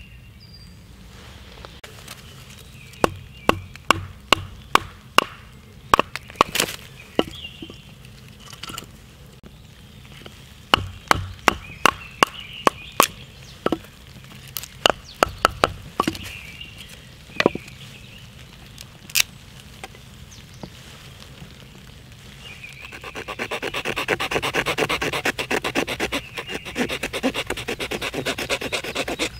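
A series of sharp, irregular wooden knocks as a small hatchet, choked up under its head, chops and shapes a piece of split wood for a spork on a stump. From about 23 s on, a knife scrapes the wood in quick, continuous carving strokes.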